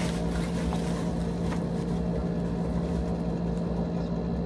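A steady electric motor hum runs throughout, with a few faint rustles and crinkles of bubble-wrap packaging as a boxed helmet is pulled out of it.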